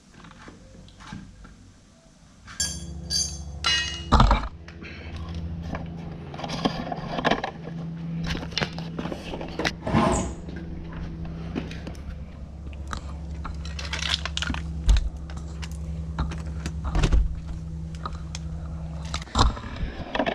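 A handheld power tool motor runs steadily from about two and a half seconds in until shortly before the end, with scattered knocks and rattles over it.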